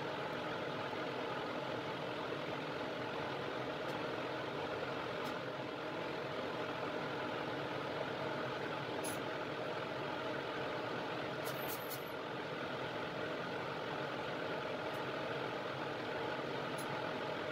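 Steady mechanical hum of a running fan, even throughout, with a few faint small clicks about nine and twelve seconds in.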